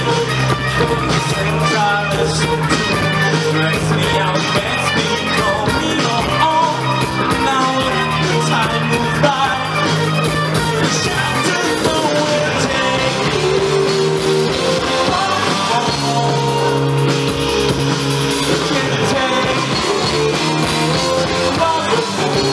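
A live rock band playing loudly: electric guitar lines over bass and a drum kit, with singing.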